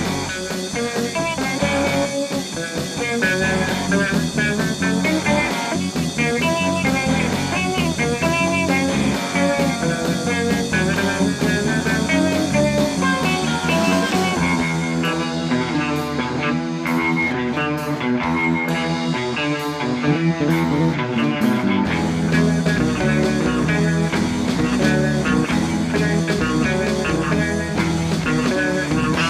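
Live rock band playing an instrumental passage on electric guitars and bass guitar, with no singing.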